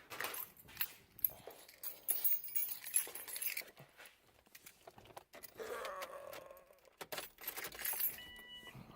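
A bunch of car keys jangling and clicking in a hand, in two spells, with a short electronic beep near the end.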